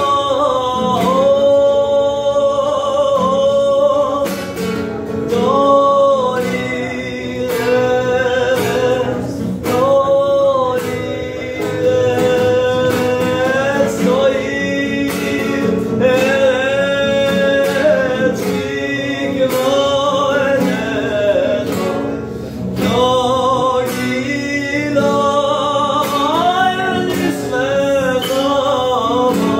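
A man singing a slow melody with long held notes, accompanying himself by strumming an acoustic guitar.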